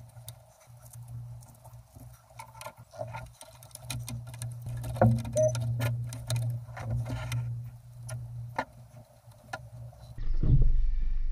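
A scale RC crawler's brushed motor and drivetrain give a steady low hum as it creeps along, with many irregular small clicks and crackles. About ten seconds in, the sound changes abruptly to a louder, lower rumble.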